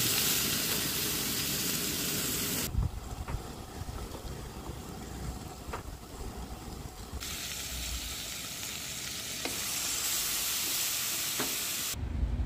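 Marinated LA-style beef short ribs (galbi) sizzling over a charcoal fire, with a few sharp pops. The sizzle drops away suddenly about three seconds in and comes back loud a few seconds later.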